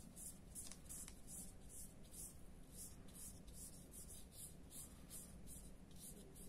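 Paintbrush bristles scratching over paper in quick back-and-forth strokes, about three a second, faint.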